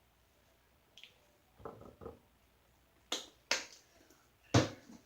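Short, sharp handling clicks while working a sticky slime mixture by hand: two faint soft ones a little before the middle, then three louder ones in the second half.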